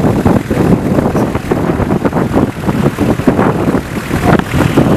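Lava fountains at a basaltic fissure vent erupting: a loud, continuous rush broken by rapid, irregular bursts as molten spatter is thrown up.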